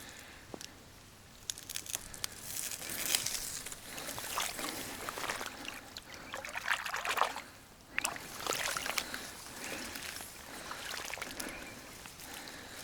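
Water sloshing and trickling around a person wading through a river, coming in uneven swells with small splashes and clicks.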